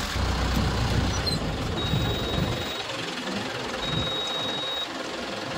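Safari vehicle driving along a forest road: steady engine and road noise with rattling and a rumble that rises and falls. From about two seconds in, a high steady beep about a second long repeats every two seconds.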